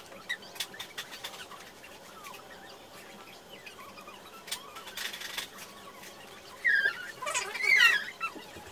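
Tulle strips rustling as they are pulled through a crocheted waistband and knotted, with faint clicks and a short rustle about halfway through. Near the end come a few short, high, chirping squeals with sliding pitch, louder than the handling.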